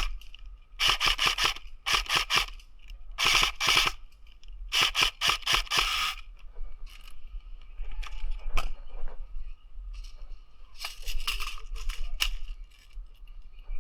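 Airsoft electric rifles (AEGs) firing full-auto bursts: four loud, rapid rattling bursts in the first six seconds, a few scattered cracks after, and a quieter burst near the end.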